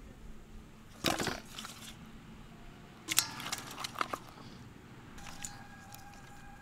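Live climbing perch flapping in a stainless steel bowl, their wet bodies slapping and knocking against the metal in two short bursts, about a second in and again around three seconds in.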